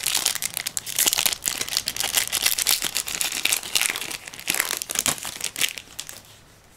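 Foil wrapper of a Yu-Gi-Oh booster pack crinkling and tearing as it is torn open by hand, a dense crackle full of small clicks that dies away about six seconds in.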